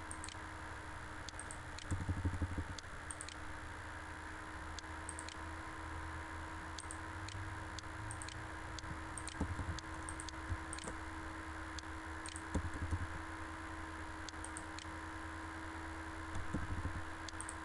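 About twenty scattered computer mouse clicks, singly and in quick pairs, over a faint steady hum, with a few brief low rumbles.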